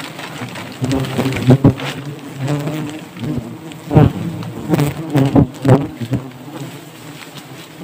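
A swarm of giant honeybees buzzing steadily around their open comb, disturbed as the comb is being taken. Several sudden louder bursts stand out, at about one and a half, four and five and a half seconds in.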